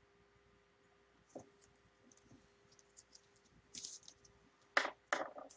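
Quiet clicks and rustles of something being handled, getting busier, with two sharper crackles close together near the end.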